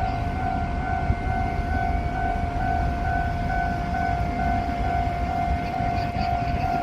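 Rail maintenance vehicle running with a low rumble while a steady high warning tone sounds over it, pulsing faintly at an even rate.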